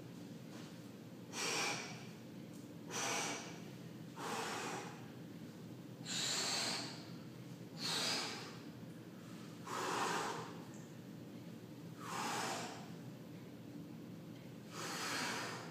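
A man breathing hard with exertion while lifting dumbbells: eight sharp, noisy breaths, one every couple of seconds, over a steady low hum.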